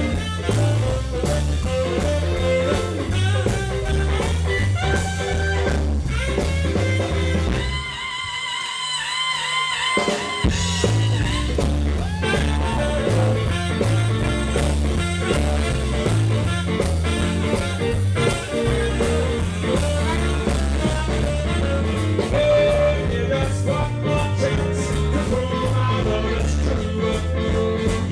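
Live band music with a steady beat and bass line; about eight seconds in the bass and beat drop out for a couple of seconds, leaving a wavering higher melody line, before the full band comes back in.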